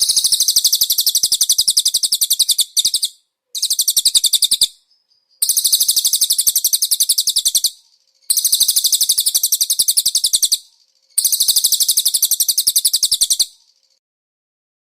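Recorded songbird song: five very high trills of rapid repeated notes, each lasting two to three seconds, with short breaks between them.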